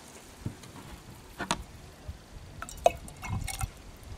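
Handling sounds right after hot water is poured into a large glass jar: a few last drips of water, then scattered light clicks and low knocks as the plastic jug and the glass jar are set down on a wooden table, the sharpest click about three seconds in.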